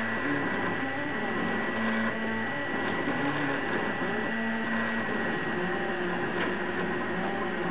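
Prusa i3 3D printer at work. Its stepper motors sound in short tones that jump and glide in pitch as the print head and bed move back and forth, over a steady high whine.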